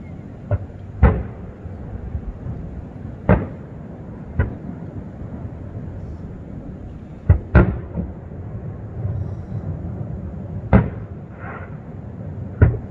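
Fireworks going off: about eight sharp bangs at irregular intervals, two in quick succession near the middle, over a steady low rumble.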